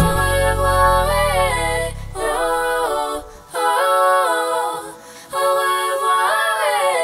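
Unaccompanied singing in four short, repeated phrases with brief pauses between them, while the low beat of the backing music fades out over the first three seconds or so.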